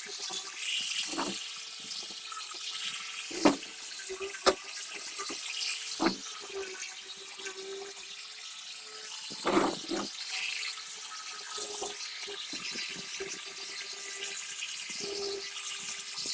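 Water running with a steady hiss and a faint hum, broken by several sharp knocks and clinks of handled objects.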